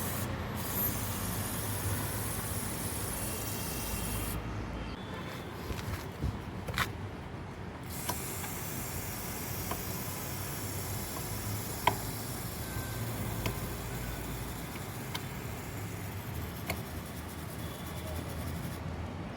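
WD-40 aerosol spray hissing onto a motorcycle drive chain in long bursts, with two short breaks in the spray about four and seven seconds in. A few sharp clicks, the loudest about twelve seconds in, and a low hum run under it.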